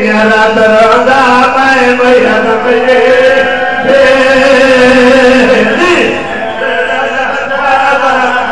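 Men chanting a qasida, a devotional mourning poem, in long held notes, amplified through microphones.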